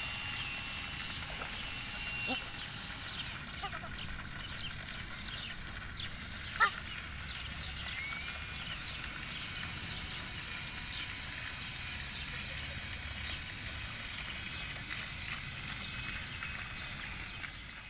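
Outdoor pond ambience of ducks and small birds calling, many short chirps against a low steady background, with one louder call about six and a half seconds in.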